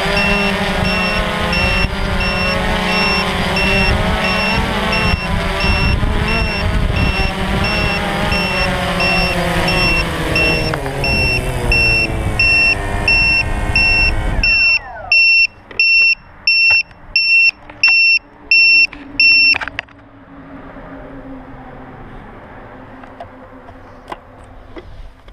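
DJI Phantom quadcopter's motors and propellers running steadily on the ground, then winding down in a falling whine and stopping about fourteen seconds in. A high electronic beep repeats about twice a second throughout, standing out once the motors stop and ceasing about twenty seconds in. A faint hum and a few clicks follow.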